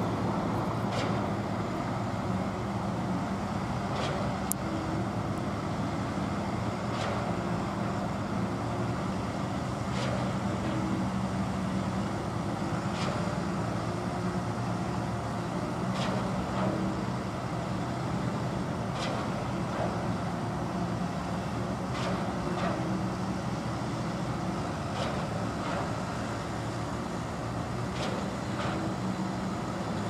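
Diesel truck engines running steadily, with a sharp knock about every three seconds, typical of a truck-mounted concrete pump switching its valve between piston strokes during a pour.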